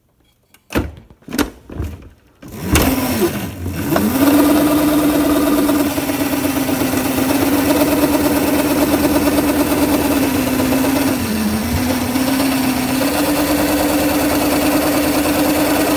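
Electric Razor go-kart's battery motor spinning its one driven wheel in place on a concrete floor in a burnout: a steady whine with a hissing rubber scrub, which starts about three seconds in after a few knocks and dips in pitch briefly twice. The tyre is scrubbing hot and laying rubber on the floor.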